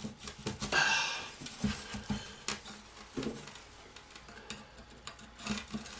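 Light metal knocks, clinks and a brief scrape of a hammer and screwdriver being worked against a ceiling-fan wind turbine's seized hub fitting, several scattered blows rather than a steady rhythm.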